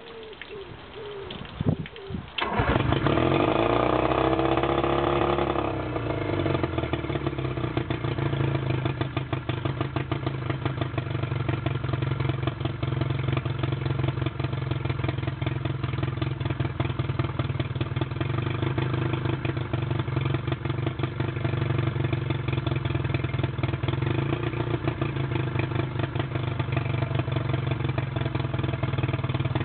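1968 Evinrude Big Twin 40 hp two-stroke twin outboard motor cranking briefly and catching about two seconds in. It runs fast for a few seconds with its pitch swinging, then settles to steady running.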